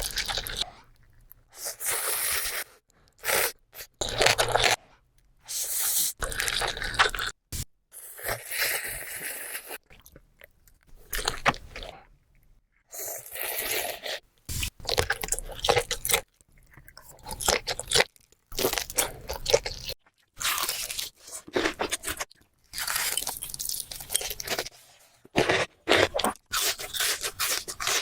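Close-miked eating sounds: crunchy food being bitten and chewed in a series of separate crunching bursts with short silent gaps between them.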